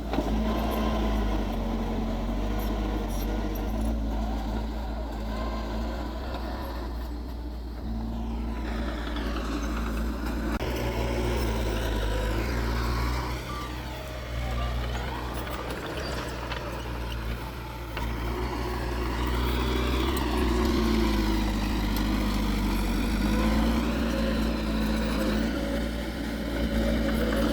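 Heavy diesel engines of earth-moving machinery running continuously, their pitch rising and falling several times as they work under load.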